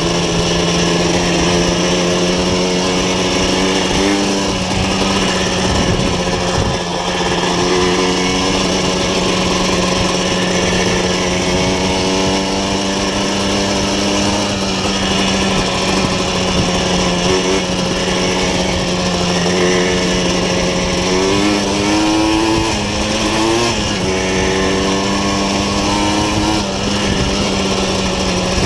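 Year-2000 Yamaha Blaster's 200cc single-cylinder two-stroke engine, fitted with a Doma Racing full exhaust, running under way at fairly steady revs. A few quick throttle changes make the pitch rise and fall, most clearly about three-quarters of the way through.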